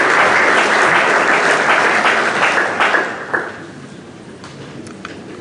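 Audience applause that dies away about three seconds in with a few last claps, leaving a quiet hall with a few small clicks.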